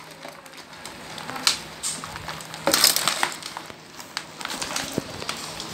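Live crabs scrabbling in a plastic tub: irregular clicks and scrapes of shells and legs against the plastic and each other, with a louder scraping clatter about three seconds in.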